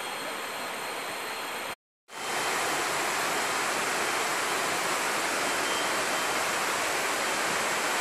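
Steady rush of running water from a jungle creek. There is a brief dead dropout a little under two seconds in, and after it the rush comes back louder.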